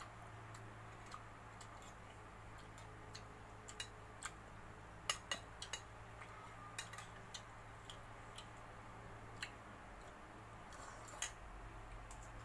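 Quiet eating sounds: scattered sharp clicks and smacks, clustered about five seconds in and again near the end, as a man eats rice and fried gourami by hand from a glass bowl. A steady low hum runs underneath.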